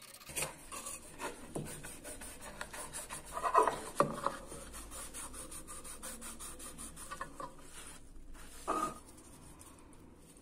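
Rusty oil-lamp parts being scrubbed and wiped by hand: a brush and a cloth rubbing on metal in quick strokes, with louder scrapes around four seconds in and again near the end.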